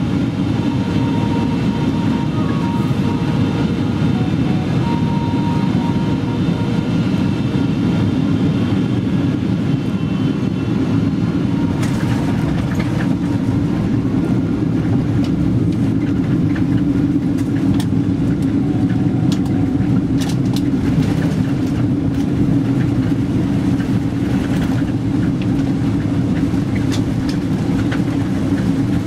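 Cabin noise inside a Boeing 777-300ER landing, with its GE90 engines giving a steady rumble and faint whines that fade in the first half. From about twelve seconds in, scattered knocks and rattles come as the aircraft rolls along the runway.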